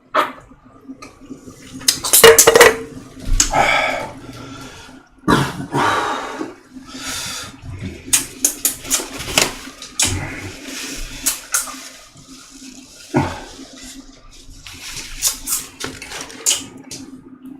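Water splashing in short bursts and dishes and cutlery clinking, as when rinsing dishes at a sink.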